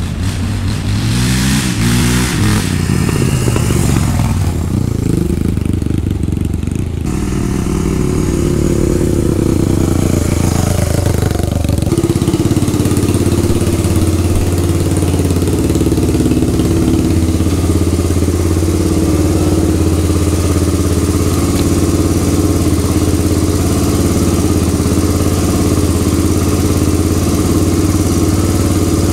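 Honda ATC 350X three-wheeler's single-cylinder four-stroke engine running on its freshly fitted reconditioned Keihin carburetor. Its pitch rises and falls in the first several seconds as it is ridden, then from about twelve seconds in it runs steady and even at low revs.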